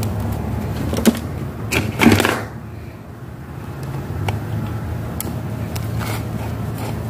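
Light clicks and knocks of a circuit board and its connectors being handled and pressed into a metal control-box housing, with a short louder scrape about two seconds in, over a steady low hum.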